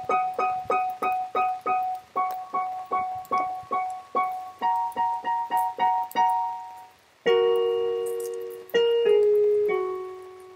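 Keyboard with a piano-like tone playing a quick run of evenly repeated notes, stepping up and down in pitch a few times. After about seven seconds come two held chords, each fading slowly.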